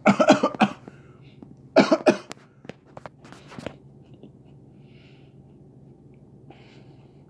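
A man coughing in three short fits: a rapid run of coughs at the start, a second loud fit about two seconds in, and weaker coughs a second or so later. The coughing comes from the lemon drop pepper's heat burning his throat.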